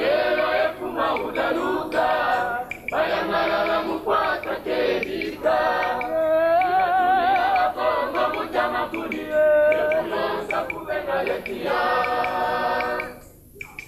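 A group of men singing together unaccompanied, in phrases with long held notes and short breaks between them; the singing stops shortly before the end.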